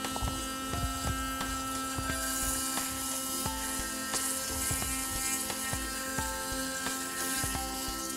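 Sonic electric toothbrush rated at 33,000 vibrations per minute, buzzing steadily in the mouth with one strong pitch and many overtones, with irregular light clicks and knocks of the brush head against the teeth.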